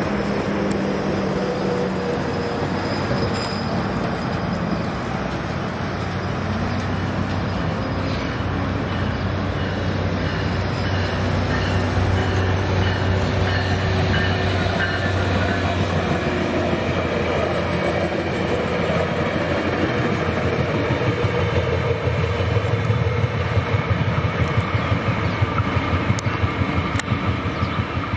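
A train running past close by: a steady heavy rumble with a low hum, and wheel clatter that turns sharper and more rhythmic in the last several seconds.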